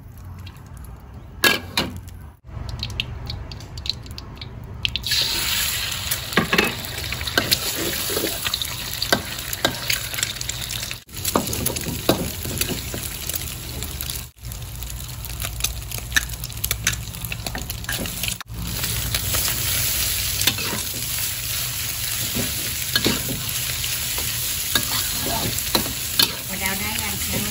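Hot oil in a steel wok sizzling as eggs and then boiled instant noodles are stir-fried, with the spatula scraping and clicking against the pan. The sizzling starts about five seconds in, after a quieter stretch while the oil heats.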